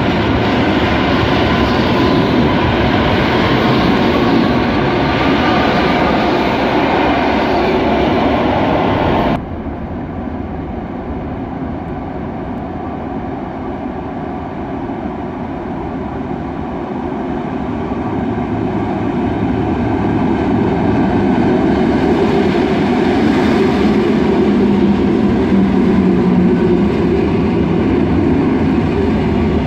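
Electric multiple-unit trains in an underground station. One runs past close by until a cut about nine seconds in. Then another is heard approaching from the tunnel, growing louder as it runs in alongside the platform, with a low steady hum from it near the end.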